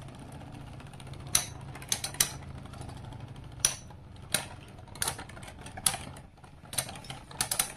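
Two Beyblade spinning tops, Lightning L-Drago and a layerless burst bey, whirring steadily on the plastic stadium floor. They clack together in about ten sharp, irregular hits as they attack each other.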